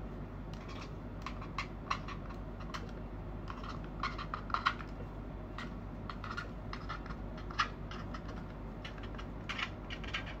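Marker pen scratching across a cassette tape's paper label in quick, irregular strokes as letters are written.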